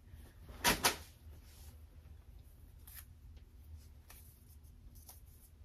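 Fabric of a dress being handled: one short, louder rustle under a second in, then a few faint soft rustles and ticks against quiet room tone.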